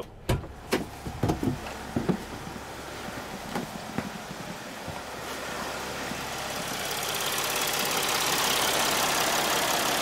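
Mercedes Sprinter's 3.0-litre V6 diesel idling steadily and smoothly, no longer misfiring now that three faulty fuel injectors have been replaced. A few knocks and clicks in the first two seconds, and the engine grows louder over the last few seconds.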